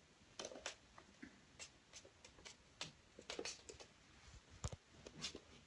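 Faint, irregular light taps and clicks of kittens' paws and claws on a hardwood floor as they scamper and play, with one slightly heavier knock near the end.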